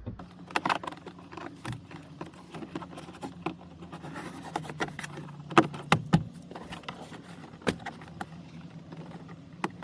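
Irregular plastic clicks, taps and rustling as a dash cam cable is pushed up under a car's headliner trim with a plastic pry tool, over a faint steady low hum.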